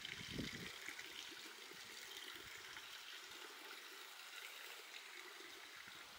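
Water running or trickling steadily, with irregular low bumps through it.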